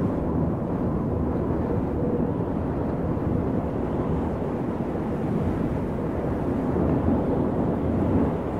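A steady, low rumbling noise with no distinct events, like a wind or distant-engine ambience.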